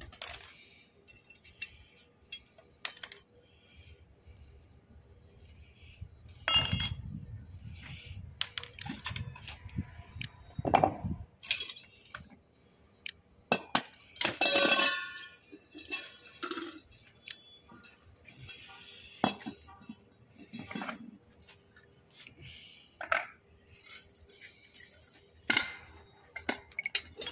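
Metal parts and hand tools clinking and knocking as a vertical multistage pump is taken apart: scattered sharp clinks throughout, one longer ringing clang about halfway through, and a stretch of low rumbling handling noise from about six to eleven seconds in.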